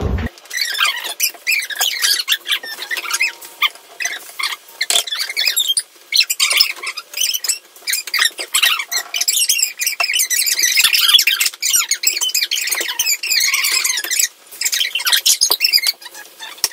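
Fast-forwarded kitchen audio: voices pitched up into high, squeaky chatter, mixed with quick clicks and clatter of utensils, with the deep part of the sound cut away.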